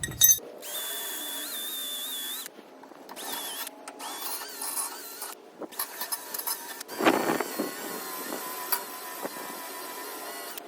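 Grinder motor whining with a wavering high pitch as it works steel fabrication pieces, with a rougher, louder grinding stretch about two-thirds of the way through. The sound cuts off abruptly and resumes a few times.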